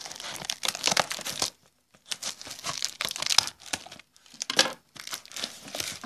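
A taped brown paper mailer envelope being cut open with scissors and torn apart by hand: paper and packing tape crackling and tearing in irregular bursts, with two short pauses.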